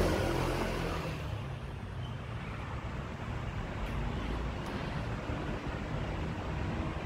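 Low, steady rumble of road traffic. A louder passing vehicle fades away over the first second.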